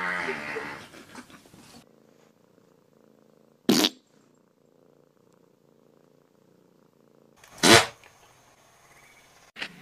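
Domestic cat meowing, a drawn-out wavering call that fades out about two seconds in. It is followed by two short, sharp, loud noises about four seconds apart.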